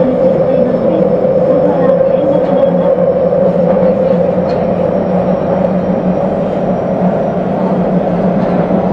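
Nagoya subway train standing still at a station platform, heard from inside the car: a steady hum from its onboard equipment, with a low drone under a stronger mid-pitched tone.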